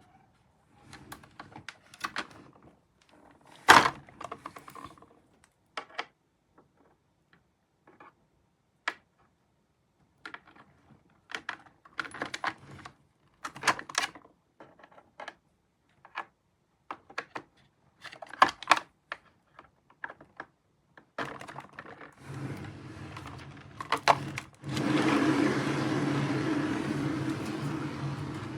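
Scattered clicks, taps and knocks of hard objects being handled and set down. In the last few seconds a steady rushing sound with a low hum comes in.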